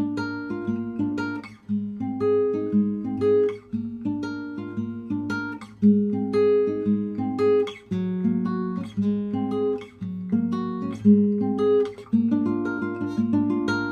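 Background music: an acoustic guitar picking a melody, each note struck and then fading, over a steady low bass note.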